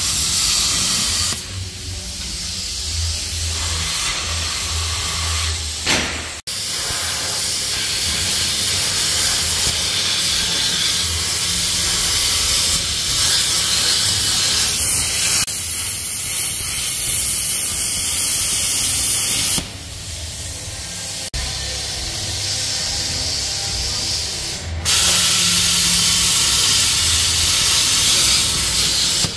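Plasma cutter cutting steel under a Jeep JL, a steady hiss of the arc and air. It cuts off briefly about six seconds in, eases off about two-thirds of the way through, then comes back strongly near the end.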